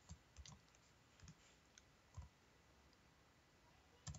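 A handful of faint computer keyboard keystrokes, scattered with pauses, including a quiet stretch of about two seconds, then two quick taps near the end.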